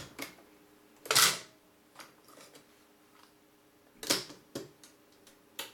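Akai GXC-39D cassette deck's piano-key transport mechanism clicking and clacking as its keys are worked: a click as playback stops, a louder clack about a second in, and more sharp clicks around four seconds in at the cassette door, over a faint steady hum.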